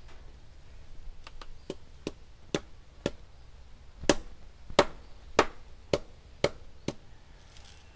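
A knife chopping into nipa palm fruit, about a dozen sharp chops at an uneven pace of one to two a second. They are loudest in the middle and fewer near the end.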